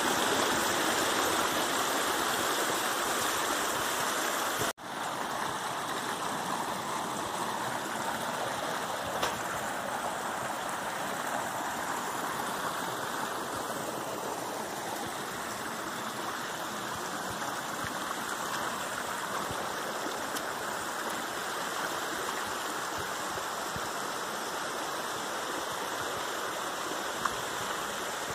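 Small rocky forest stream rushing over little cascades, a steady rush of water. It cuts out for an instant about five seconds in and carries on a little quieter.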